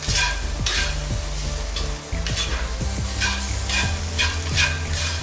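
Spatula scraping and tossing noodles in a cast-iron wok, a stroke about every half second, over the sizzle of stir-frying food.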